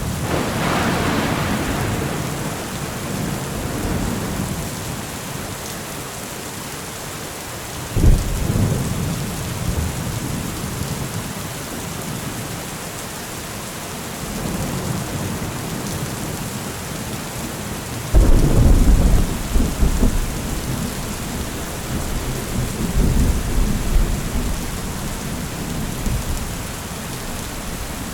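Thunderstorm: steady rain with rolling thunder. There is a sudden clap about eight seconds in, then a loud, long rumble that starts abruptly about two-thirds of the way through and trails off in further rolls.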